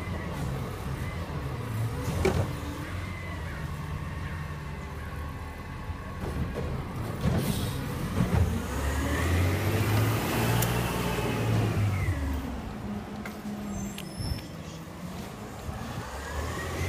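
Heil garbage truck's diesel engine running, revving up and settling back down about halfway through.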